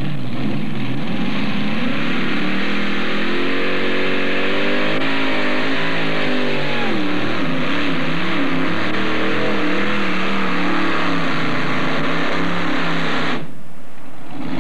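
Modified pulling tractor's supercharged engines running at full throttle under load while dragging the weight-transfer sled. The engine pitch climbs, drops about seven seconds in, then wavers as the tractor pulls.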